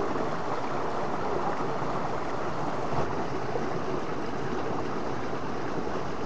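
Fast-flowing river water rushing steadily, with one brief faint knock about three seconds in.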